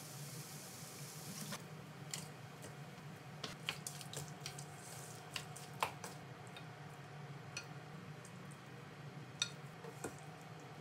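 Seasoning poured into a stainless steel bowl, then chopsticks clicking and tapping against the bowl as blanched komatsuna is tossed in the dressing, with soft wet squishing of the greens. A steady low hum runs underneath.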